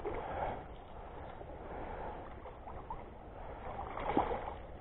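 A hooked largemouth bass splashing and thrashing at the water's surface close to the bank, with light water sloshing and a stronger splash around four seconds in.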